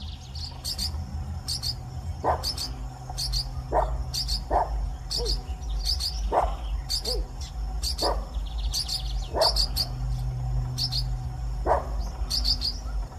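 Small green parrots calling at a nest: quick high chirps repeating about once or twice a second, mixed with lower calls that slide downward every second or two, over a steady low rumble.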